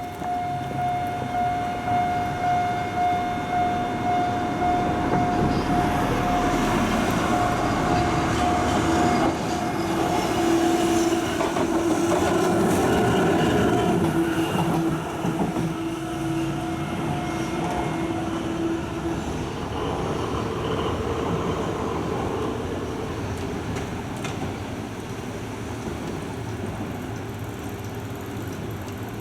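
Level-crossing warning bell ringing with a steady, even beat while a train runs over the crossing, wheels clacking, loudest about halfway through. The bell fades out about two-thirds of the way in, leaving a lower road-traffic rumble.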